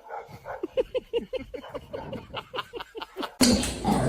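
A dog whimpering in a rapid string of short cries, each falling in pitch, several a second. Near the end it breaks off into a sudden loud rush of noise.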